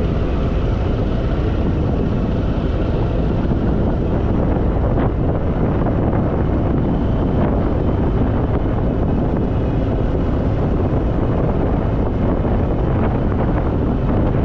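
Harley-Davidson Fat Boy's V-twin running steadily while riding, under heavy wind rush on the microphone.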